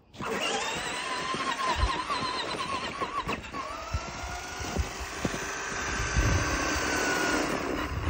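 RC truck's motor and drivetrain whining as its wheels churn through snow, the pitch wavering up and down with the throttle. From about three and a half seconds in a single whine rises slowly and holds before dropping off near the end, with a few dull thumps under it.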